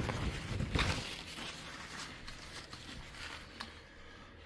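Faint rustling and handling noises with a few light taps, dying away near the end.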